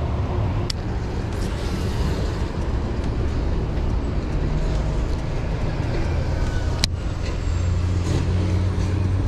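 Steady road traffic noise from a nearby highway, a constant low rumble of passing cars and trucks that grows heavier near the end. A sharp click sounds about seven seconds in, with a fainter one under a second in.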